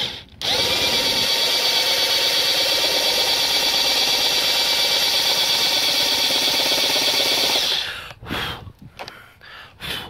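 Cordless drill turning a 32 mm spade bit through a plastic car door card, set to plain drill mode rather than the torque clutch. It spins up about half a second in, runs steadily for about seven seconds, then stops. A few brief quieter noises follow near the end.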